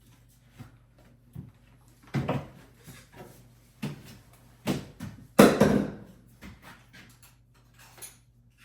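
A series of irregular knocks and clunks of hard objects being handled, the loudest and longest about five and a half seconds in.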